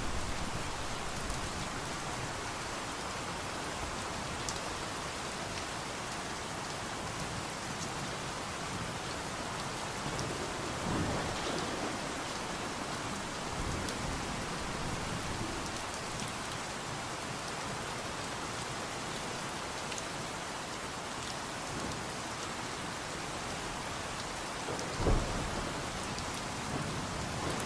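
Steady rain falling, heard as an even hiss. A low rumble of thunder dies away in the first second or so, and one sharp thump stands out near the end.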